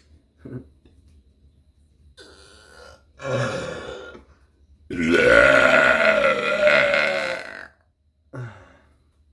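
A woman burping: a shorter burp about three seconds in, then a long, loud burp lasting nearly three seconds whose pitch rises and then sinks a little.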